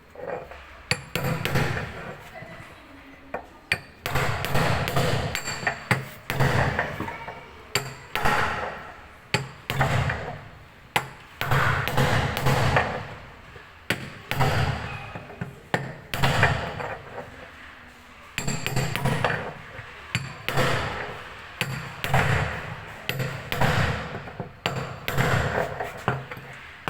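Washing machine knocking and rattling hard while its drum turns, in repeated bursts about every two seconds: the noise of a machine that is faulty when it spins.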